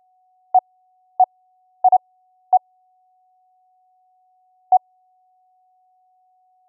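Short Morse code dits from a keyed software sine-wave CW oscillator: six brief pure beeps of one pitch, irregularly spaced, two of them close together just before the two-second mark. A faint continuous tone of the same pitch sits under them.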